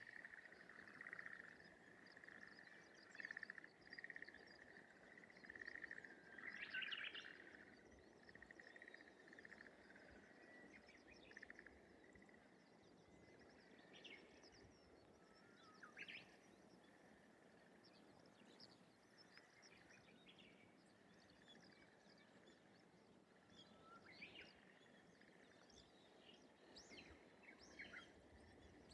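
Faint rice-paddy morning ambience: a continuous rapid rattling trill at one pitch, which the uploader cannot place as a bird, a frog or another creature, fades after the first dozen seconds, while birds give scattered short chirps throughout, the loudest a brief downward call about seven seconds in.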